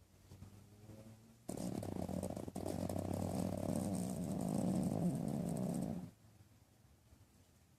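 Small dog snoring loudly in its sleep: one long, fluttering snore starts about a second and a half in and stops abruptly about six seconds in.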